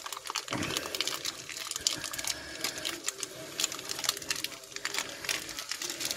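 Stir-fry vegetables crackling and sizzling in a wok while meat cubes are tipped in and pushed down by hand, with a fast irregular patter of small clicks and pops.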